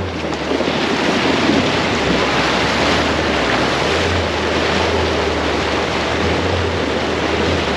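A 4WD fording a river: water rushing and splashing off the front of the vehicle, with the engine's steady low drone underneath.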